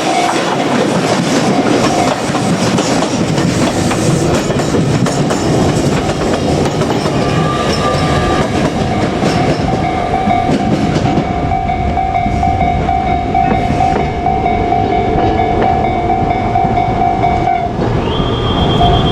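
JR Kyushu 817-series electric train passing over a level crossing, its wheels clattering over the rail joints. A steady warning tone rings over the train noise; it breaks off briefly near the end, where a higher tone comes in.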